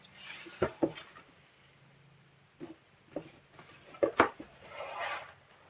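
Handling noise: several sharp knocks and taps, two about half a second in and the loudest about four seconds in, then a short soft rustle near the end.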